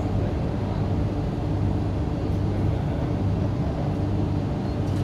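Steady rumble and low hum inside the car of an MTR Kwun Tong Line Q-Train in service, with a few faint steady tones above the hum and no announcements.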